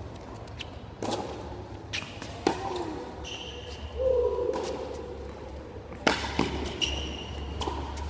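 Tennis ball struck by rackets and bouncing on a hard court during a baseline rally: sharp pops at uneven intervals, with several close together in the second half.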